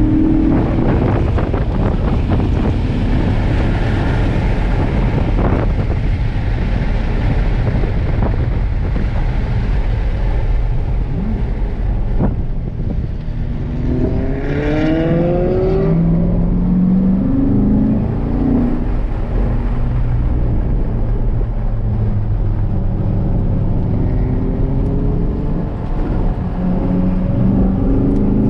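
C7 Corvette Grand Sport's LT1 V8 heard from inside the cabin, driven hard on track: a steady low engine note with road and wind noise, rising in pitch under acceleration about halfway through and again near the end.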